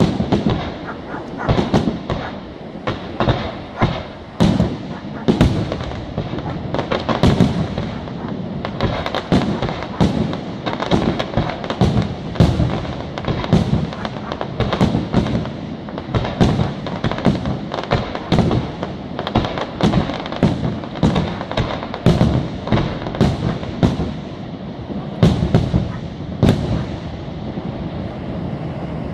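Fireworks display at full barrage: aerial shells going off in quick succession, sharp bangs several times a second over a continuous rumble, with a few louder bangs about halfway and again near the end.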